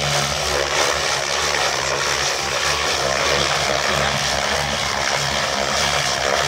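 SAB Goblin 700 electric radio-controlled helicopter flying low aerobatic manoeuvres: its rotor blades make a loud, steady whirring chop.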